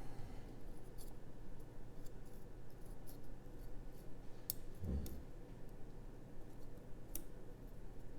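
Faint metallic ticks and scrapes from a Lishi 2-in-1 NSN14 pick working the wafers of a Nissan door lock, with a soft thump about five seconds in.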